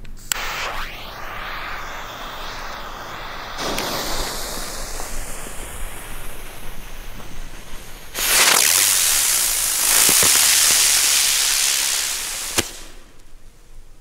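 Funke Feuerfalke Silberknister flying bird fireworks going off: a hiss with a sweeping tone as the first one lifts off, a second joining about three and a half seconds in, then a loud, dense silver crackle effect from about 8 s that lasts some four seconds and ends in a sharp crack.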